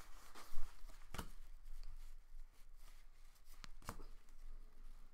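Panini Contenders football trading cards being handled and flipped through: soft rustling with a few short, sharp clicks.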